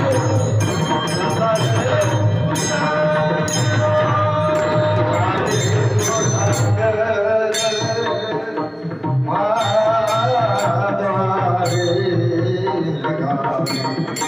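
Marathi devotional kirtan music: men singing an abhang into a microphone, backed by small brass hand cymbals (taal) clashing in a steady rhythm and a drum beat beneath. The singing breaks off briefly past the middle and then resumes.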